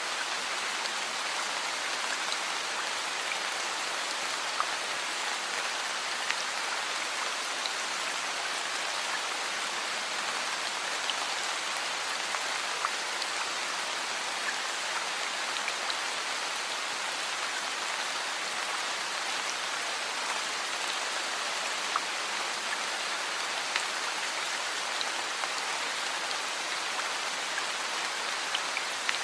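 Heavy rain falling steadily, an even hiss with scattered louder drops ticking now and then.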